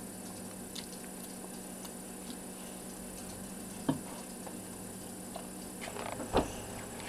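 Quiet room tone with a steady low hum and the faint small clicks and taps of a toddler chewing and handling food at a table, with a sharper click about four seconds in and a few soft knocks near the end.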